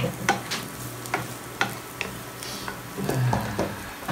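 Chopped onion and garlic sizzling in oil in a nonstick frying pan, stirred with a wooden spatula that scrapes and taps against the pan about twice a second.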